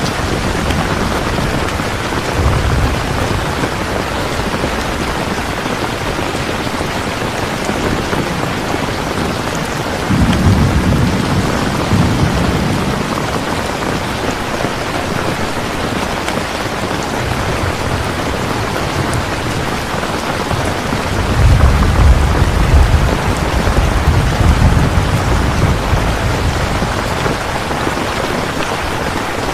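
Steady heavy rain, with low rolls of thunder about ten seconds in and again, louder, past twenty seconds.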